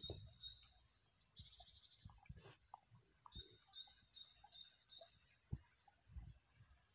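Faint natural ambience: a steady high insect hiss, a short fast-pulsing insect trill about a second and a half in, and a run of short high chirps. Soft low thumps come now and then.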